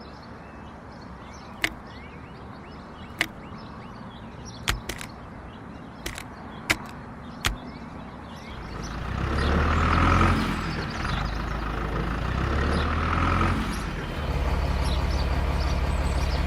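Several sharp clicks in the first half. Then, about halfway in, the small motor of a homemade mini truck starts and runs steadily with a low hum.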